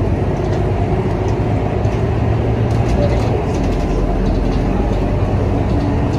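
Steady engine and road rumble of a city bus in motion, heard from inside the cabin.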